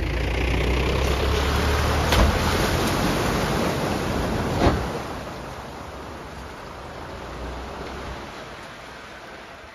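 A ute driving through a deep muddy puddle, its engine pulling hard under load as water sprays and splashes. There is a sharp knock about two seconds in and a louder one at about four and a half seconds. The engine and splashing then fade as the ute drives away.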